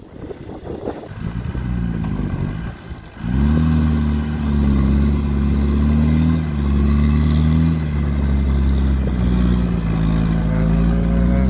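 Land Rover Discovery engine revving hard as its wheels spin in soft sand on a dune climb: the truck is digging in and stuck. A short rise and fall in revs comes first. About three seconds in, the engine jumps to high revs and is held there, wavering slightly.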